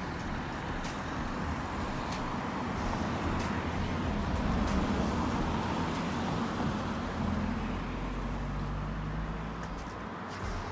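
Road traffic: a passing motor vehicle's engine and tyres, swelling to its loudest around the middle and fading toward the end.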